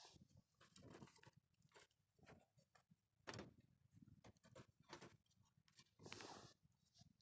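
Faint crackling of a wood campfire: irregular pops and snaps, with a couple of longer crackling bursts about six seconds in.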